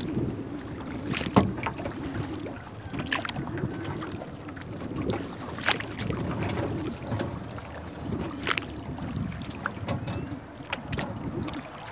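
Kayak being paddled: water lapping and sloshing against the hull under wind on the microphone, with a sharp splash from the paddle every two to three seconds.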